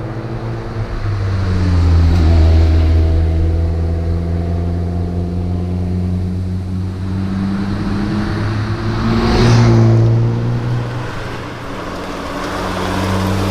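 Toyota Celica GT4 rally car's turbocharged four-cylinder engine running hard under load, its pitch holding fairly steady with gentle rises and dips. A short, louder rush of noise comes about nine and a half seconds in.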